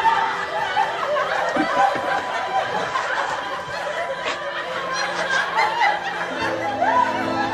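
Sitcom studio audience reacting with soft, many-voiced laughter and murmuring. Soft music comes in near the end.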